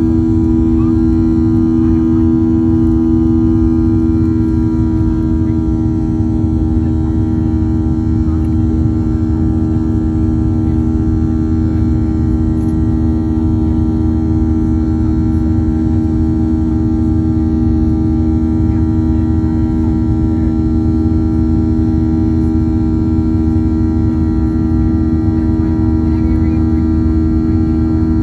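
Boeing 737-800 cabin noise in the climb after takeoff, heard from a window seat beside the engine. The CFM56-7B turbofans make a steady loud drone: a strong hum with a rumble beneath it and a stack of fainter steady tones above it.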